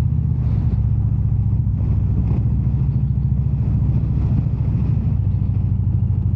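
Indian Super Chief Limited's V-twin engine, fitted with a Rush exhaust, running steadily at low road speed with an even low rumble.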